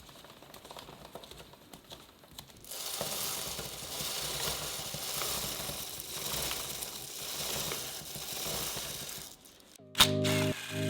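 Motorcycle drive chain being cleaned: a few light clicks, then a fizzing, hissing scrub that rises and falls for about seven seconds. About a second before the end, a louder power-tool whir starts.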